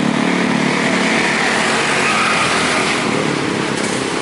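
Motor traffic passing on the street: a motorcycle engine hum fades out about a second in, leaving a steady rush of passing vehicles.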